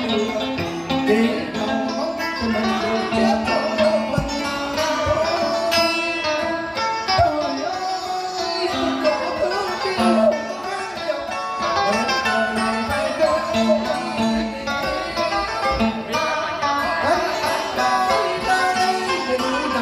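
Live Vietnamese cải lương band of plucked strings, guitars and a moon lute, playing an instrumental melody with bending notes.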